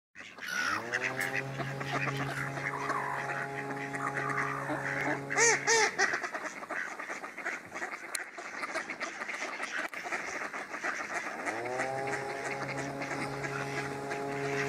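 A flock of mallards quacking and chattering, with a loud cluster of quacks about five seconds in. A steady low droning tone runs under it from the start, breaks off around six seconds and comes back near the end.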